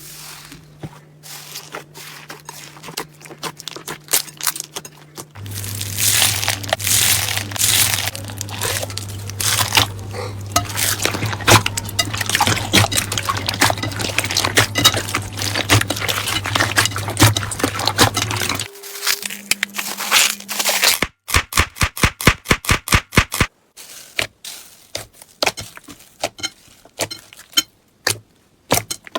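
Slime being squeezed, poked and stretched by hand, giving dense crackling and popping clicks that change in character every several seconds as one clip gives way to the next. About two-thirds of the way through comes a quick, even run of sharp clicks, roughly eight a second, and a low steady tone sits beneath the first part.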